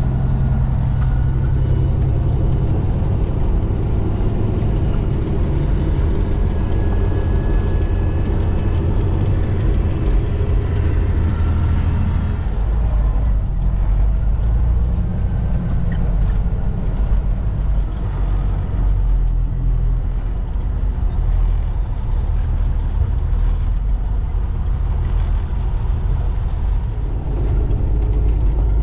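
Heavy diesel engine running steadily, a loud low drone whose pitch shifts slightly about twelve seconds in.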